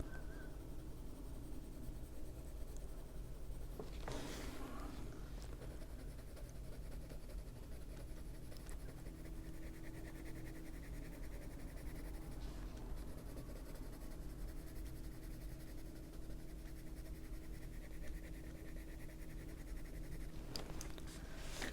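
Prismacolor colored pencil scratching steadily across a coloring-book page as color is laid down and blended, over a low steady hum.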